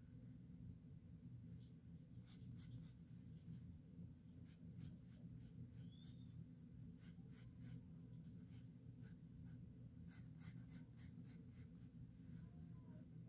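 Faint pencil scratching on sketchbook paper: runs of short, quick strokes with pauses between them, over a steady low hum.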